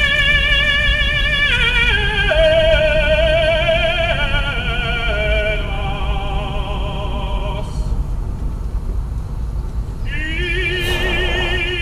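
Operatic singing, one voice holding long notes with strong vibrato and breaking off briefly about eight seconds in, over the steady low rumble of a car in motion.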